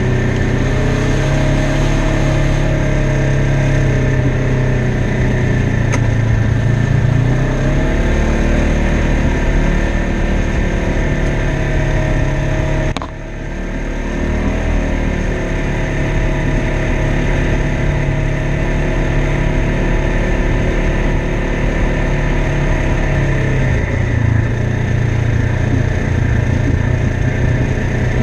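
2016 Polaris RZR XP 1000 side-by-side's twin-cylinder engine running under way on a dirt trail, its pitch rising and falling as the throttle is worked, with a brief dip about halfway through.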